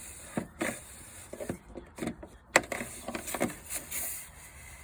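Dryer-vent cleaning brush on an extension rod scraping and knocking inside the vent duct as lint is pushed out: irregular rustling scrapes, with one sharp knock about two and a half seconds in.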